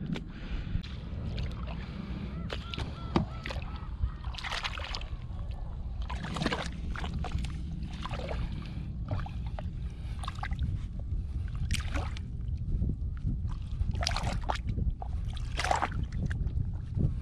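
Boots squelching and sloshing through wet tidal mud and shallow water, a handful of separate wet steps spread over a steady low rumble.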